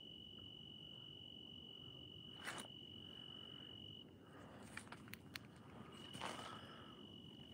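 A cricket singing one steady, continuous high note that breaks off for about two seconds midway and then resumes. A few faint rustles and clicks come over it, the clearest about two and a half seconds in and about six seconds in.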